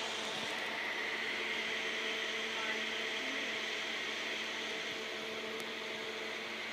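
Meditec EIL 5000 water-cooled argon ion laser running: a steady hiss and hum with a few faint held tones, easing slightly in the second half.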